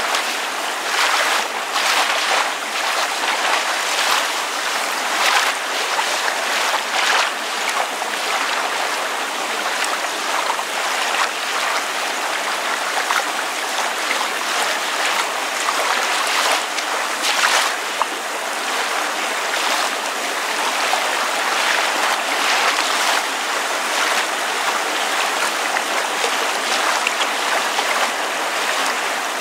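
Water lapping against a surface with rain falling: a steady hiss of water broken by irregular small splashing laps.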